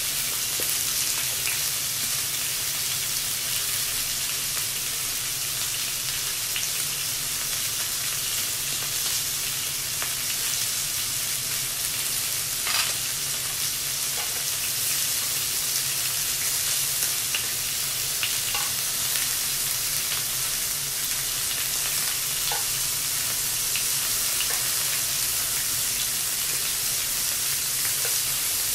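Pieces of beef, pork and vegetables sizzling on a tabletop grill plate, a steady hiss, with a few light clicks along the way.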